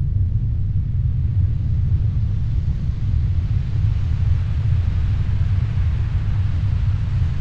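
A steady, deep rumble of noise with a hiss above it that grows stronger over the second half.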